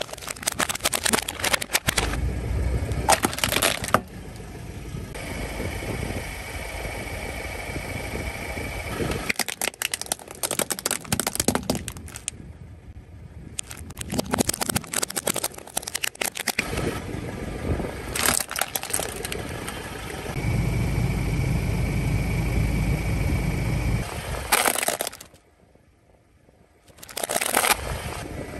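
Plastic toy vehicles cracking and snapping as a car tyre rolls over them on asphalt, in several bouts of crackling with pauses between. A car engine runs low underneath in two stretches, and there is a brief quiet gap shortly before the end.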